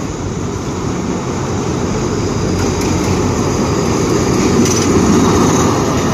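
Orange State Railway of Thailand diesel locomotive, number 4113, approaching and passing close by at the head of a passenger train. Its engine rumble grows steadily louder and peaks about five seconds in.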